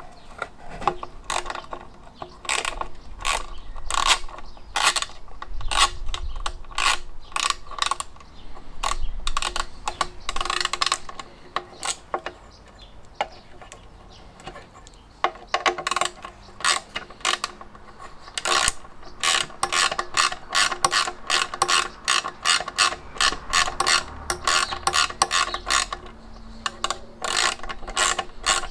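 Socket ratchet clicking in quick runs as it backs off an 8 mm nut, with a quieter pause about midway.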